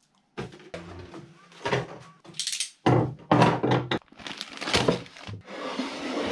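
Small household items tossed one after another into a wooden drawer, thunking and knocking against its boards, with a plastic packet rustling. Near the end the drawer slides along on its runners.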